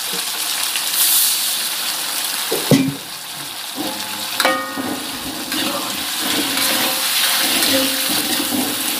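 Food frying in hot oil, a steady sizzle, with a couple of sharp knocks of cookware about three and four and a half seconds in.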